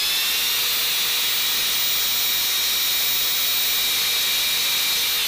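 Angle grinder running at full speed with no disc fitted, a steady high whine over a hiss. It is on test after a repair and, to its owner, runs smoothly with no play in its new bronze plain bearing.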